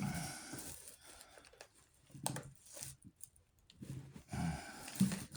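Rustling and scraping of hand work on crossbow parts, broken by a few sharp clicks and knocks.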